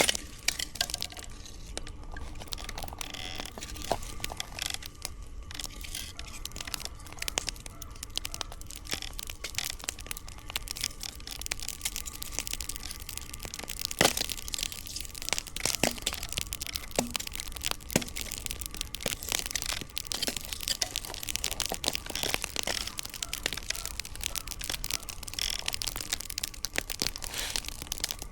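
Campfire crackling: a dense, irregular run of small snaps from the burning firewood, with a few sharper cracks, the loudest about 14 seconds in. A faint steady hum runs underneath.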